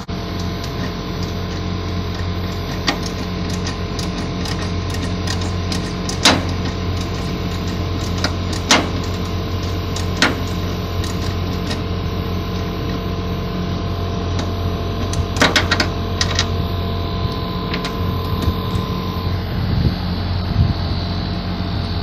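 Mr. Cool 36,000 BTU three-zone mini-split outdoor unit running steadily, its compressor pumping the system down with the liquid valve shut, drawing the refrigerant back into the condenser as the suction pressure falls toward zero. A few sharp clicks stand out over the hum.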